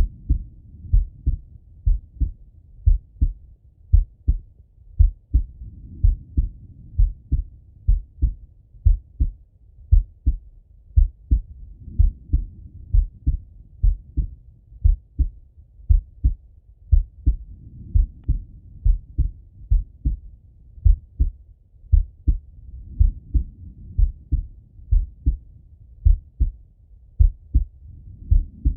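A man's slow heartbeat heard through a Littmann stethoscope: steady pairs of dull, low thumps at about one beat a second. A soft rushing sound swells and fades about every six seconds.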